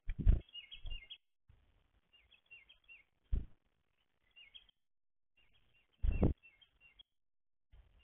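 Small wild birds chirping in short, high, repeated twittering phrases. Four loud dull knocks close to the microphone cut through them: at the start, about a second in, a little past three seconds and about six seconds in.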